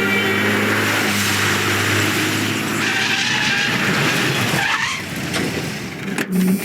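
A motor vehicle driving by with heavy tyre and road noise. A falling sweep comes about two-thirds of the way through, and a few sharp clicks and a short loud burst come near the end.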